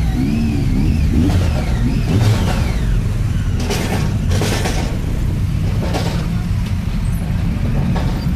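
Motorcycles riding slowly in low gear, engines running with a steady low rumble. A wavering high tone sounds in the first second or so.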